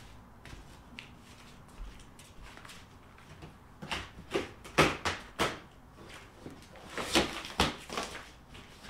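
A large cardboard shipping box being opened by hand: a few faint clicks at first, then from about four seconds in short bursts of cardboard scraping and rustling as the top is cut and a flap is pulled up.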